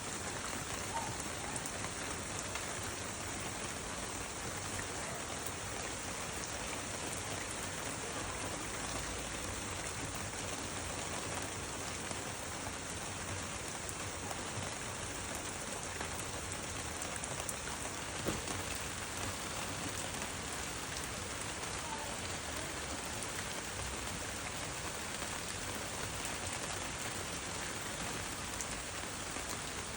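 Steady rain falling on a surface, an even hiss with scattered drop ticks and a single louder drop about eighteen seconds in.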